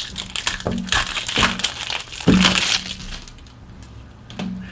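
Foil trading-card pack being torn open and crinkled by hand: a run of crackling and crinkling for about the first three seconds, then quieter.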